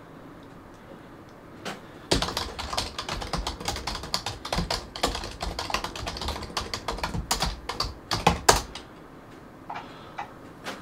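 Fast typing on a computer keyboard, starting about two seconds in and stopping after a couple of harder keystrokes near the end.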